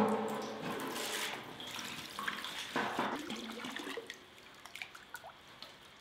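Water gushing from a garden hose into a large galvanized metal washtub, splashing as the tub fills. The sound is loudest at the start and dies down to a gentle sloshing after about four seconds, once the hose is taken out.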